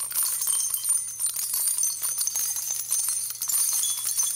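Jingling of small bells: a steady, bright tinkle made of many quick high clicks, over a faint low hum.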